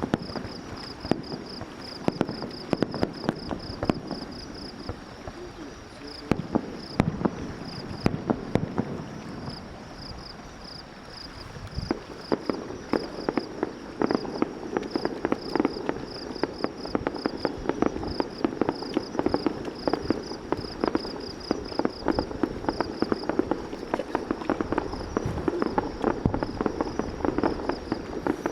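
Fireworks crackling: many sharp pops and crackles, growing denser from about twelve seconds in. Insects chirp in a fast, high pulsing rhythm throughout.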